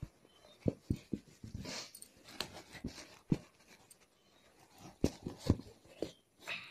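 Fabric rustling and soft knocks as folded clothes are pressed down and arranged by hand inside a cloth storage bag stiffened with cardboard, in a handful of short, irregular sounds.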